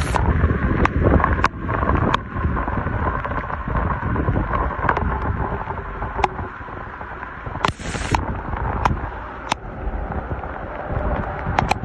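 Heavy rain with wind buffeting the microphone, and scattered sharp taps of drops striking close by. A brief hiss about eight seconds in.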